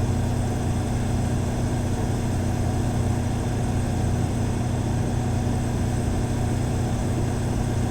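Cummins Power Connect whole-house standby generator, fitted with its Level 2 sound-attenuating kit, running steadily at 100% load, heard from 7 meters. It gives an even engine hum with a steady low tone under a wide rushing noise.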